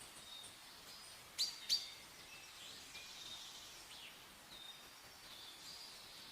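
Several small birds chirping and calling, with two loud sharp chirps close together about one and a half seconds in, over a faint steady hiss.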